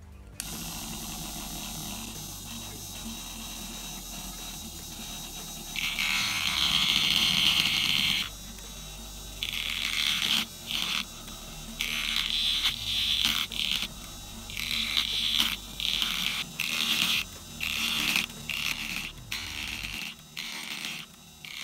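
A 775 DC motor starts and runs a small cutter that cuts teeth into a plastic gear blank. A high-pitched grinding comes in repeated passes, first one long pass of about two seconds and then a quicker run of short cuts as the blank is fed in and indexed tooth by tooth.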